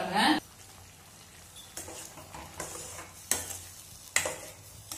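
A spoon or ladle stirring a pot of simmering curry gravy, clinking and scraping against the metal pot about six times over a soft background of bubbling.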